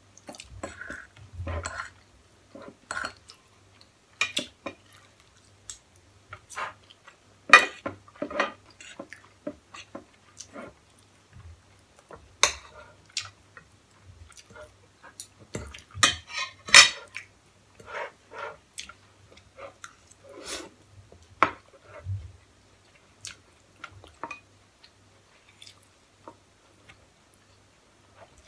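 Forks and spoons clinking and scraping irregularly against plates as noodles, chicken and sausage are eaten, with close-up chewing between the clinks. The sharpest clinks come about a quarter of the way in and again just past halfway.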